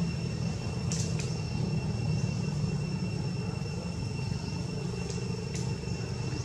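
Steady low background rumble with a thin, steady high whine over it and a few faint short clicks.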